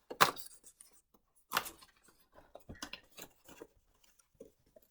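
Crinkling and rustling of packaging being handled and torn open to unwrap a skein of yarn: two louder crackles near the start and about a second and a half in, then lighter scattered rustles.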